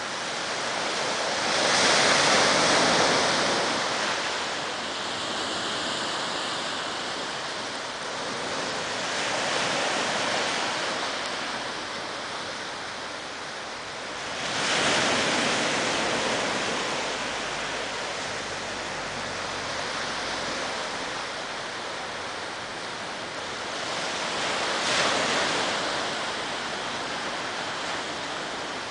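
Small sea waves breaking and washing up a sandy beach, a steady surf hiss that swells and fades as each breaker comes in, loudest a couple of seconds in and again about halfway and near the end.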